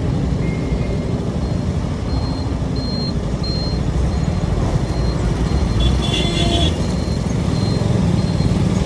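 A motorcycle's engine rumbling at a standstill in heavy road traffic, moving off near the end. A thin, high electronic beep repeats steadily, about three beeps every two seconds.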